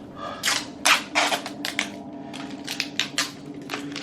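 Adhesive tape pulled off the roll in a series of short, irregular rips, with a faint steady hum underneath.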